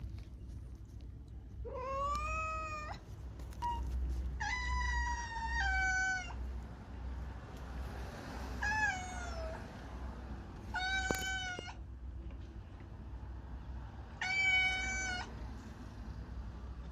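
A cat meowing repeatedly: about six drawn-out meows, each roughly a second long and bending in pitch, a couple of seconds apart, over a steady low hum.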